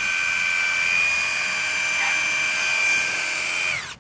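Bosch GDX18V-1600 18 V cordless impact driver/wrench, with a brushed motor, running free at full speed with no load: a steady high whine from motor and gears, with no impacts. Just before the end the trigger is released and the whine falls in pitch as it spins down.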